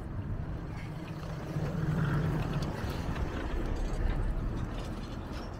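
Low, steady rumble of a snowy city street, with a car engine swelling as it goes by about two seconds in.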